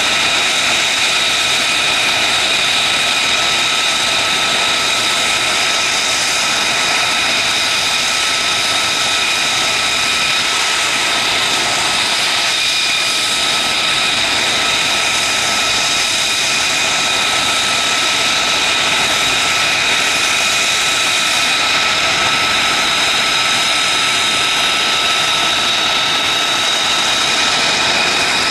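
Jet engine running steadily: a continuous rush with a constant high whine held at one pitch.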